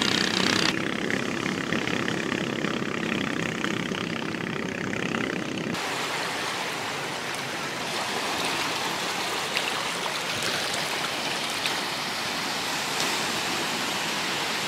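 Steady rushing noise of sea surf and wind at the shore, its tone changing abruptly about a second in and again about six seconds in.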